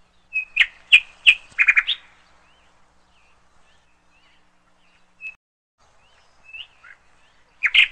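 Birds chirping: a quick run of loud chirps in the first two seconds, then scattered fainter calls, and a loud call again near the end.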